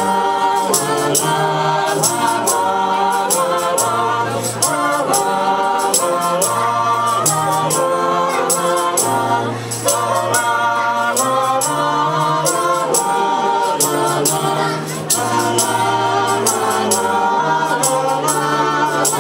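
Young choir singers singing a song in parts into microphones, over an accompaniment with a steady bass line and a regular beat of light, high percussion.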